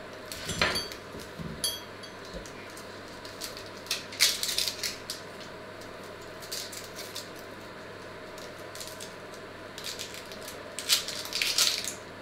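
Onions set down on a wooden table with a few soft thumps, then a small kitchen knife peeling an onion: dry, papery crackling and scraping of the skin, coming in short spells.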